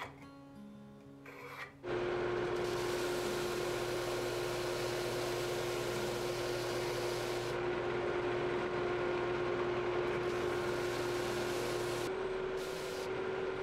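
Benchtop belt-and-disc sander switched on about two seconds in, then running with a steady hum and a strong steady tone while a figured maple neck blank is pressed flat on the belt to flatten its face. The tone steps slightly higher near the end.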